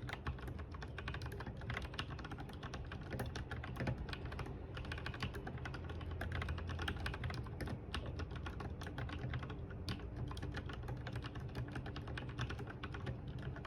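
Logitech G Pro X mechanical keyboard with lubed linear red switches being typed on quickly and continuously, a dense run of many keystrokes a second.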